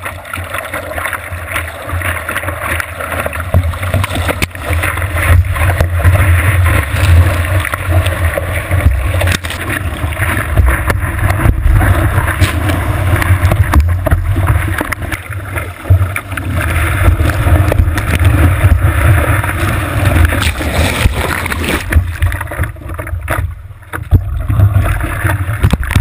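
Surf water rushing and splashing over a surfboard, picked up by a camera mounted on the board's nose as a loud, muffled rumble with wind buffeting the microphone.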